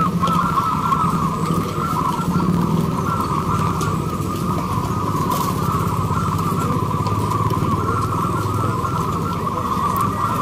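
Chorus of many caged zebra doves (perkutut) cooing at once, their overlapping calls merging into a steady, unbroken mid-pitched band. Under it runs a steady low mechanical hum.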